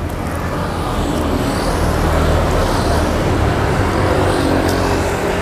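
Street traffic noise: a steady low rumble of passing vehicles that swells about a second in and stays loud.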